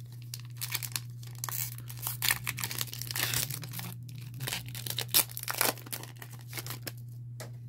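Foil Pokémon booster pack wrapper being torn open and crinkled, in a run of irregular crackles and rips that dies down shortly before the end.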